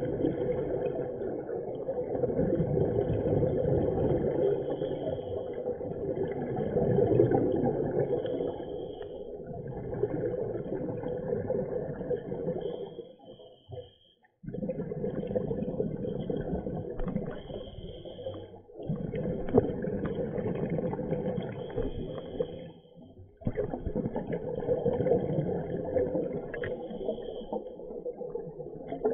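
Scuba regulator breathing and exhaled bubbles rushing past an underwater camera housing, heard muffled, in long stretches broken by a few brief quiet pauses between breaths.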